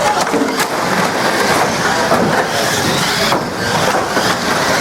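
Banger racing cars running on the track: a dense, continuous mechanical noise of engines and tyres, with a couple of sharp knocks near the start.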